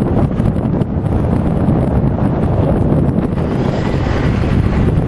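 Wind buffeting the microphone of a camera riding along on a moving electric bike: a loud, steady low rumble.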